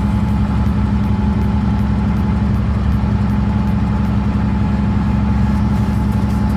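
A heavy machine's engine running steadily at an even pitch, without revving up or down.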